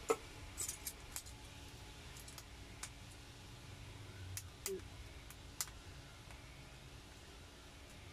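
Sparse light metallic clicks and taps of hand tools on the rocker arms and tappet adjusting screws of a Mitsubishi 4D56 diesel engine's valve gear during valve clearance adjustment. The loudest click comes right at the start; the others fall at irregular intervals.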